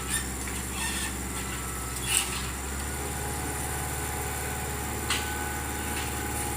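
Tractor engine running steadily, with a few short, sharp knocks about two seconds in and again about five seconds in.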